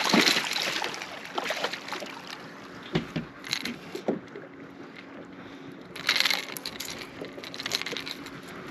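A largemouth bass splashing at the surface as it is swung out of the water, then scattered knocks and clicks as it is handled, with another brief burst of thrashing about six seconds in.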